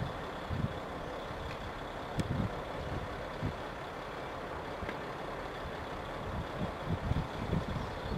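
Class 66 diesel locomotive's two-stroke V12 engine running steadily as it approaches at a distance hauling freight wagons.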